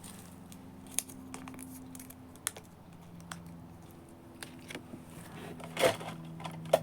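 Irregular light clicks and taps of small objects being handled, a louder cluster near the end, over a faint steady hum.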